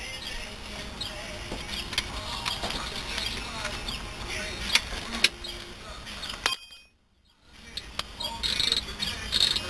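Steel wrenches clinking and clicking against a brake caliper's bolts as they are tightened by hand, with a few sharp metallic clicks, and insects chirping in the background. The sound drops out completely for under a second about two-thirds of the way through.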